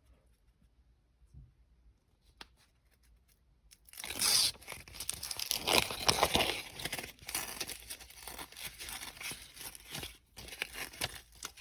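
Backing paper being peeled and crinkled off an adhesive foam noise-reduction piece, a dense crackly tearing sound that starts about four seconds in, loudest at first, then continuing more unevenly.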